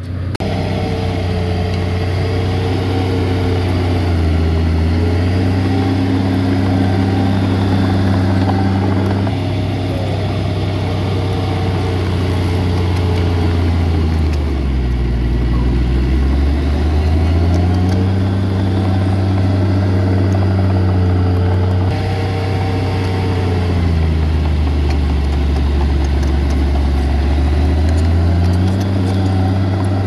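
Heavy diesel engine of earthmoving machinery running steadily. Its speed drops for a few seconds around the middle and again later on, then picks back up.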